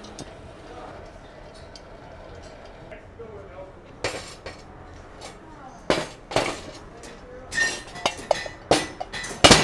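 Metal clinking and clanking as a forge fire pot and its clinker breaker bar are handled and slid into place: scattered knocks from about four seconds in, coming quickly near the end, some with a short ring.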